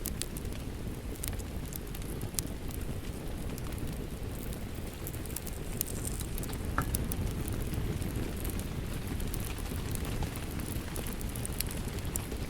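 Fireplace and rain ambience: a steady low rumble of rain, with a wood fire crackling over it in scattered sharp pops.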